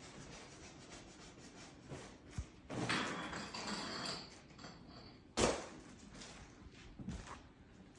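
Indoor household clatter: a stretch of rustling and shuffling, then a single sharp knock a little past the middle, the loudest sound, followed by a few fainter clicks.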